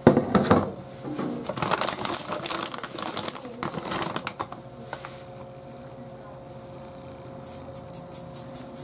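Stainless steel mixing bowl of bread dough set down on the counter with a sharp knock, followed by a few seconds of clattering and rustling handling noise. Near the end come light taps and brushing as flour is scattered by hand onto a plastic cutting board, over a steady faint hum.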